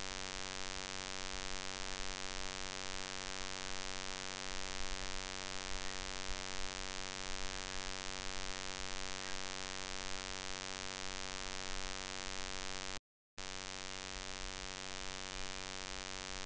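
Steady electrical mains hum and buzz with hiss in the recording, made of many evenly spaced tones. It cuts out completely for a moment about thirteen seconds in.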